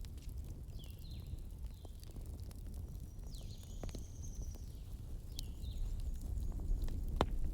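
Crackling fire: a steady low rumble of burning with scattered sharp pops, one louder pop near the end. Short high chirps that drop in pitch sound over it a few times.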